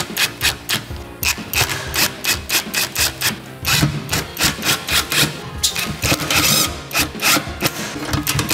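Cordless impact driver driving screws into a metal speaker mounting ring on an exhaust silencer, running in short bursts. Background music with a quick, even beat plays throughout.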